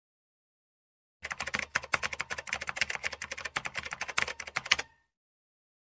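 Typing sound effect: a quick, irregular run of keystroke clicks lasting about four seconds, then stopping abruptly.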